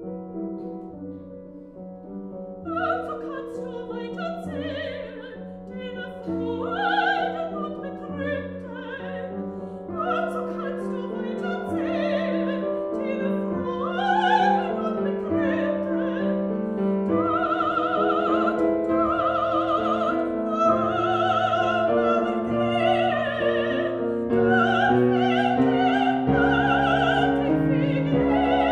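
Soprano singing a German art song with grand piano accompaniment. The piano plays alone for the first couple of seconds, then the voice comes in, with a wide vibrato, and grows louder toward the end.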